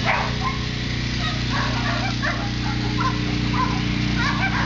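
Many shelter dogs barking and yipping over one another at a distance, over a steady low hum.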